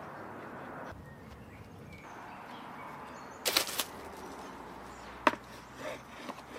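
Plastic wrap crinkling briefly in the middle, then a single sharp knock, over a steady outdoor background.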